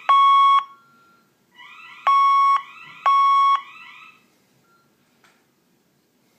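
Building fire alarm sounding loud, even beeps in the three-pulse evacuation pattern: one beep, a pause of about a second and a half, then two more beeps a second apart before it stops about four seconds in.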